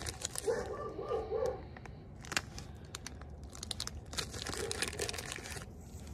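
Plastic wax melt packaging crinkling as it is handled and opened, in bursts near the start, about two and a half seconds in, and again from about three and a half to five and a half seconds in.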